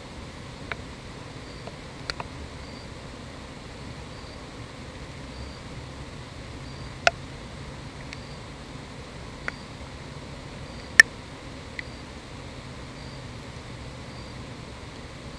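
Faint insect chirping: short high notes repeating regularly about every two-thirds of a second over a steady hiss. Several sharp clicks stand out, the loudest about eleven seconds in.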